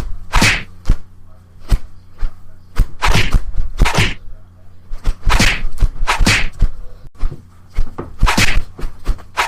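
Fight-scene sound effect: a rapid, irregular run of cartoon punch and kick hits, many with a short swish, well over a dozen strikes.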